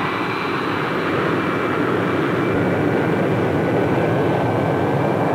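Turbojet engines of a McDonnell F2H Banshee jet fighter running on the ground: a steady, loud rush of jet noise with a high, thin whine on top. One whine climbs slightly in pitch near the end.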